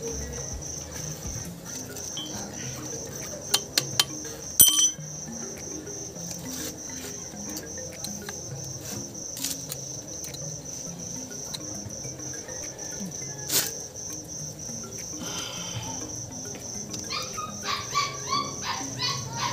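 A cricket chirping steadily, about four chirps a second, with a few sharp metallic clicks from circlip pliers working a retaining ring on a steering-rack pinion housing; the loudest click comes about four and a half seconds in.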